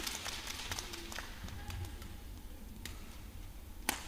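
Badminton rally: sharp cracks of rackets striking the shuttlecock and light taps of players' footwork on the court, with the loudest strike near the end.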